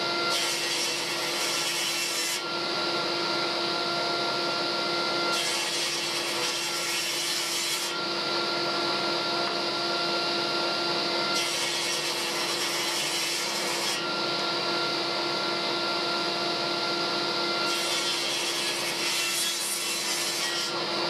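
Table saw running with a steady motor hum, its blade ripping glued-up hardwood strips four times. Each cut is a rasping hiss of about two and a half seconds, separated by a few seconds of the saw freewheeling.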